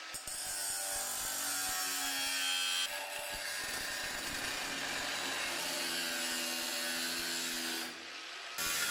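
Handheld power tool running against sheet-metal bodywork: a rasping noise with a steady whine under it, which changes abruptly about three seconds in and dies down briefly near the end.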